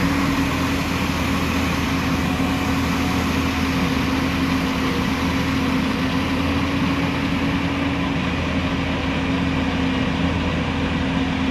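A JCB tracked excavator's diesel engine running steadily under load as the machine crawls down off a flatbed truck. It makes a constant drone with a steady hum that does not change in pitch.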